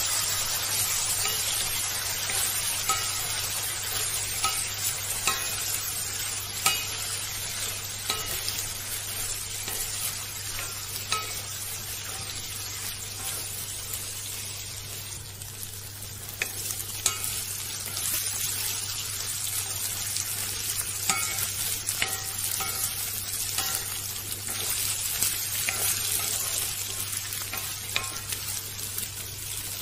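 Potato cubes and shredded chicken sizzling in oil in a metal wok, stirred with a wooden spatula that scrapes and knocks against the pan many times. A steady sizzling hiss runs underneath the stirring.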